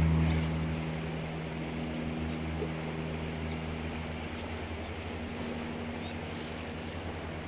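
A distant engine droning with a steady low hum; it drops in level over the first second, then carries on fainter.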